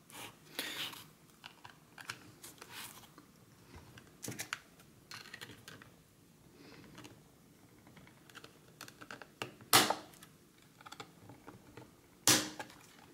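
Small clicks, taps and scrapes of a 3D-printed plastic case being handled as its battery cover is fitted and pressed into place, with two sharper, louder clicks late on.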